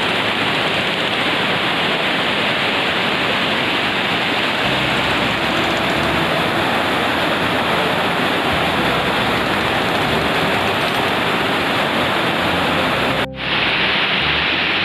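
A steady rush of river water pouring over a concrete weir spillway, running high after a typhoon. The sound drops out for a moment near the end and then carries on.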